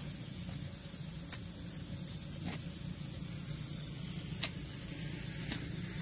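A long-handled digging tool striking into the earth of a frog hole, four short sharp knocks about a second apart, over a steady low rumble of background noise.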